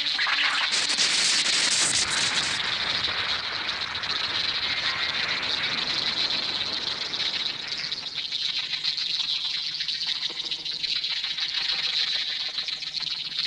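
Animated sound effect of a swarm of ants: a dense, steady skittering hiss, brighter for the first couple of seconds.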